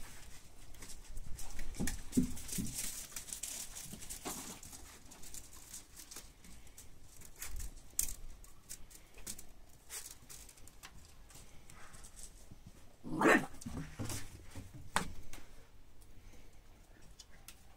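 Entlebucher mountain dog puppy moving about on wooden decking, its steps and claws making scattered light clicks and knocks. About 13 seconds in, the puppy gives one short bark, the loudest sound here.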